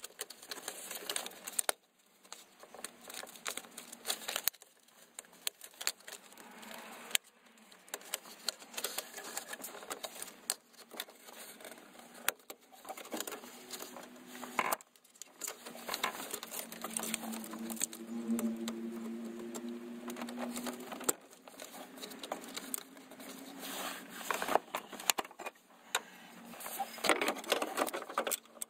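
Hands working on a GM steering column close to the microphone: an irregular run of small clicks, rattles and rubbing from wiring, plastic and metal parts. A faint steady hum sounds for a few seconds midway.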